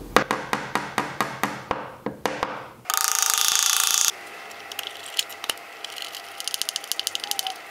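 Small ball-peen hammer tapping nails into an oak corner block, about four light taps a second for nearly three seconds. A brief loud hiss follows about three seconds in. Near the end comes a fast run of fine ratchet-like clicks as a screwdriver drives a screw into the block.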